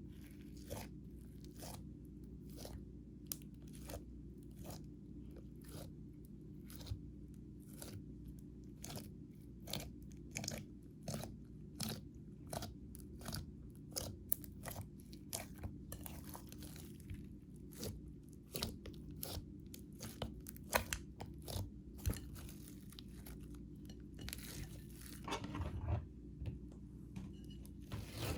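Slime being kneaded and squished by hand, a run of sharp crackles and pops several times a second, over a steady low hum.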